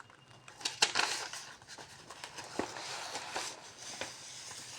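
Light clicks and rustling of small objects being handled and set down, with a few sharp knocks about a second in and again near the middle.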